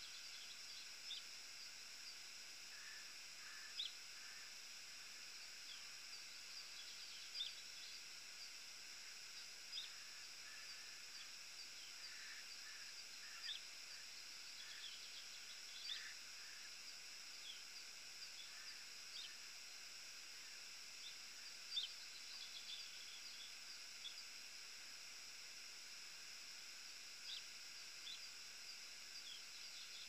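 Faint bird calls: short, high chirps every second or two, with a few lower twittering phrases, over a steady hiss.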